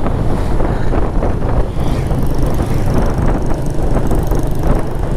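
Steady wind rushing over the microphone of a moving motorcycle, with engine and road noise underneath.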